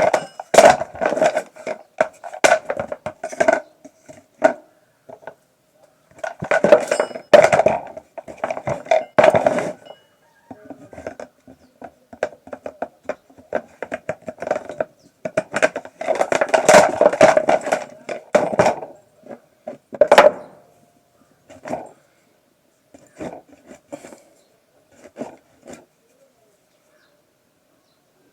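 Tools and hard parts clinking and knocking in irregular clusters, with short pauses between them and only scattered knocks near the end.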